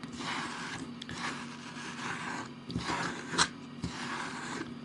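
Metal ice cream scoop scraping across hard-frozen banana ice cream in a plastic tub, in several rasping strokes, with a sharp click about three and a half seconds in.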